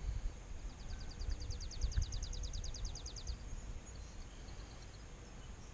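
A bird sings a trill of quick high notes, about ten a second, lasting nearly three seconds and growing louder toward its end, over a low rumble of wind on the microphone.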